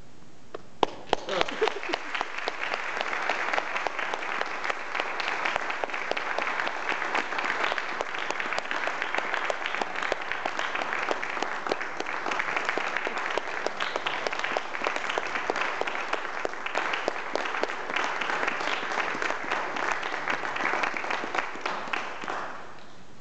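Audience applauding: a few scattered first claps, then steady applause that dies away near the end.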